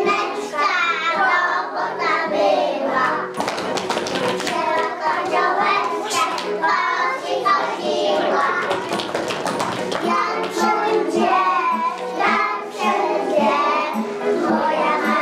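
A group of preschool children singing a Polish folk song together over an instrumental accompaniment. In the middle stretch, hand claps sound along with the singing.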